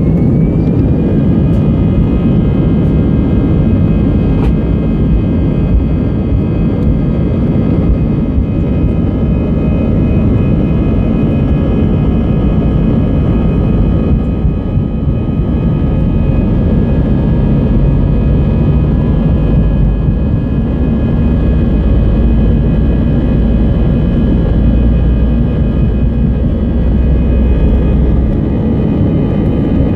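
Airbus A320's CFM56 turbofan engines at takeoff power, heard from inside the cabin: a whine that has just risen in pitch holds as a steady set of tones over a heavy low rumble. The rumble grows stronger in the second half and eases near the end.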